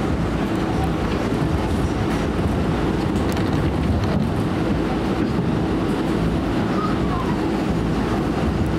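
R179 subway car running at steady speed, heard from inside the car: a continuous rumble of wheels on rail with a faint steady hum.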